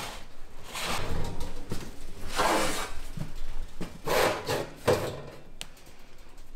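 Bread tins being slid into a woodstove oven: three scraping slides of metal tins, followed by a couple of sharp knocks.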